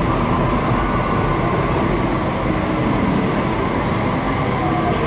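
Steady, dense outdoor city background noise, with a low rumble under it.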